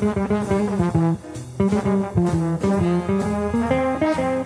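Jazz recording: a trombone playing a solo line of quick, separate notes, with bass and drums behind it.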